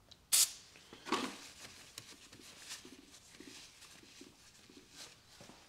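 A short spritz from an aerosol can of starting fluid, then soft rubbing and rustling of a paper towel wiping the motorcycle's frame rail.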